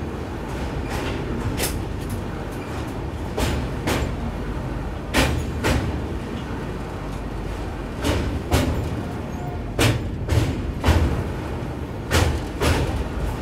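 Express train running on the rails: a steady low rumble, with sharp clacks in pairs about half a second apart, recurring every second or two, as the wheels cross rail joints.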